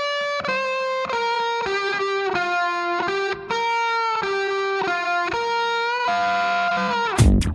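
Background music: a melodic lead line of held notes that slide from one pitch to the next, with no beat under it. Drums come back in near the end.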